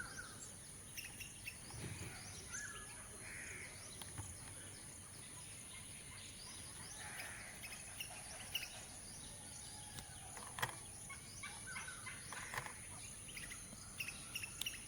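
Wild birds calling outdoors: scattered short chirps and call notes over a steady high-pitched drone, with one sharp click about ten and a half seconds in.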